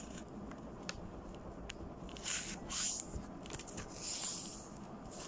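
Sheet of origami paper being folded in half by hand and the crease pressed down: a few light ticks, then soft swishes of paper sliding on the table.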